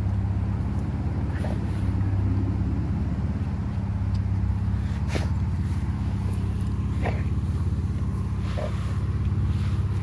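Steady low hum of an idling car engine, with a few faint light clicks scattered through it.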